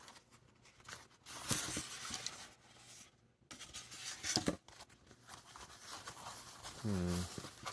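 Packaging being handled: rubbing and rustling of a box and its inserts, with a few sharp clicks and knocks in the middle.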